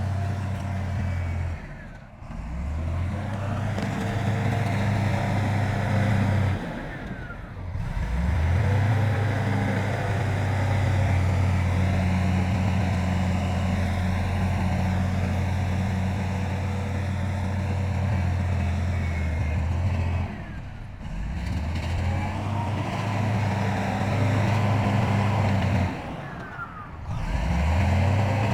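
Heavy diesel engine of earthmoving machinery running steadily. It drops away briefly four times and picks back up each time with a rising pitch.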